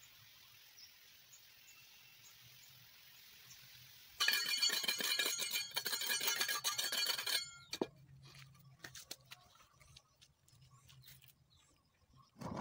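Metal trowel scraping and smoothing wet cement mortar on the inside wall of a brick-clad flower pot: faint for the first few seconds, then a loud, dense scraping for about three seconds, followed by scattered light scrapes and taps.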